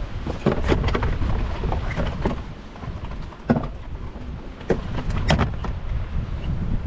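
Wind buffeting the microphone as a steady low rumble, with a string of sharp clicks and knocks from fishing tackle and the tackle box being handled close by, the sharpest about three and a half seconds in.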